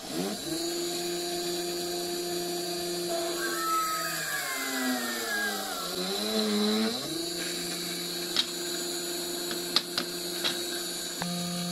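Small DC-motor mini drill press drilling holes in a printed circuit board with a 1 mm bit. The motor whines up to speed just after the start and then runs steadily. Its pitch sags for a few seconds midway and comes back up. A few light clicks come near the end.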